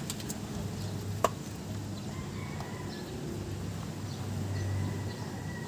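Steady low hum with one sharp knock about a second in, as a CV drive axle is handled and set back together by hand, and a few lighter clicks near the start.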